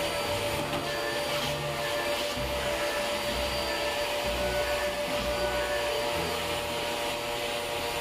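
Vacuum cleaner running steadily with a whining motor, its hose and brush nozzle drawing lint from a clothes dryer's lint-trap housing; the low rumble of the suction comes and goes as the nozzle is moved about.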